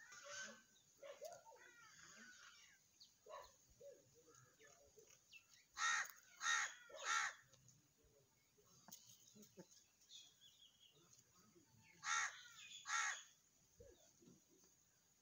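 A crow cawing: three harsh caws in quick succession, then two more a few seconds later, over faint chirping of small birds.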